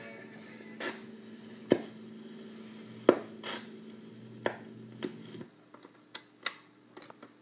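1954 RCA HY-4 45 rpm record changer at the end of a record: faint clicks about every second and a half, typical of the stylus riding the run-out groove, over a low hum. The hum cuts off about five seconds in, followed by a few sharper clicks of the changer mechanism.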